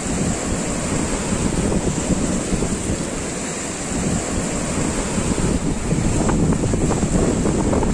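Sea surf breaking and washing over a rocky shore, a steady churning rush with low rumble, mixed with wind buffeting the microphone.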